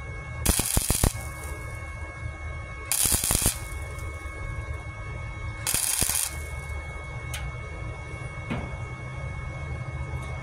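Titanium 125 Easy Flux flux-core wire welder running .030 flux-core wire, laying three short spot welds on 1/16-inch sheet metal. Each weld is a crackling burst of about half a second, the three coming roughly two and a half seconds apart over a steady hum.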